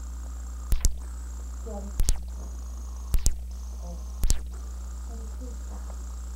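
Steady low electrical mains hum on a home-video soundtrack, broken four times by sharp double clicks about a second apart.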